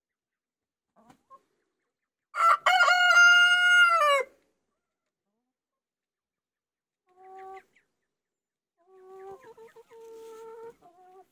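Rooster crowing once about two seconds in: a choppy start, then a long held note that drops at the end. Fainter, lower chicken calls come twice later on.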